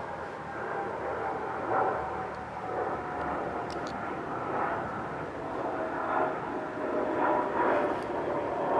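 An aircraft flying past, its engine tone falling slowly in pitch.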